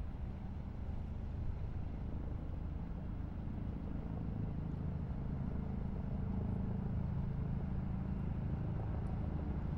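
Highway traffic: a steady low rumble of passing vehicles that grows a little louder in the second half.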